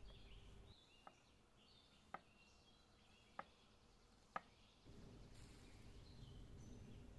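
Knife slicing an onion on a stone cutting board: four sharp taps roughly a second apart as the blade hits the stone. Birds chirp faintly throughout, and a low steady outdoor hum fills the start and returns about five seconds in.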